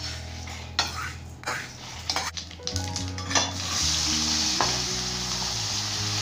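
A steel ladle scrapes and stirs dal and dried red chillies roasting in a stainless steel kadai, in quick separate strokes. About four seconds in, chopped onions go into hot oil and sizzle with a steady hiss.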